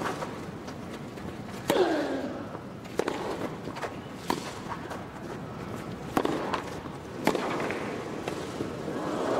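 Tennis ball struck by racquets in a rally on a grass court: six sharp hits about every one and a half seconds. Two of the strokes come with a player's grunt falling in pitch. Crowd noise swells near the end.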